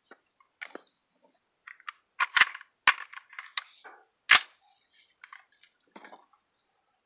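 AR-15-style rifle being loaded and made ready: a run of sharp metallic clicks and clacks from the magazine, charging handle and bolt. The loudest clack comes a little over four seconds in.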